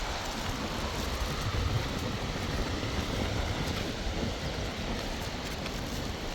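Steady rushing outdoor noise with a low rumble, without a break.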